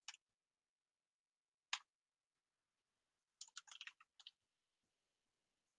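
Faint computer keyboard keystrokes amid near silence: a single key press a little under two seconds in, then a quick run of key presses between about three and a half and four and a half seconds in.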